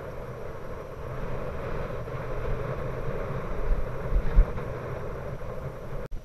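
Steady rush of riding wind on a bicycle-mounted camera, with the rumble of bicycle tyres on a rough, gravelly asphalt road and a few low bumps about four seconds in. The sound cuts off abruptly near the end.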